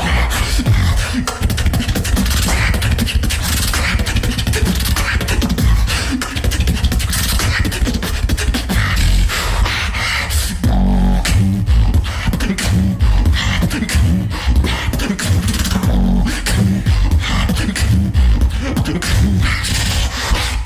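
Beatboxing: a fast, dense stream of vocal snare and hi-hat clicks over deep bass. About eleven seconds in, the bass turns heavier and more pitched.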